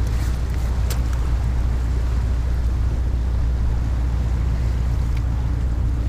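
Wind buffeting the microphone in a steady low rumble, with the sea washing over the rocks beneath it and a single light click about a second in.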